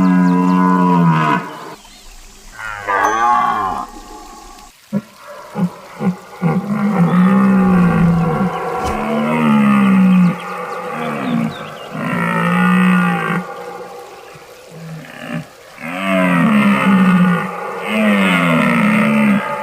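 Deer calling over and over: a string of drawn-out calls, each about a second long, some bending down in pitch, with short pauses between them.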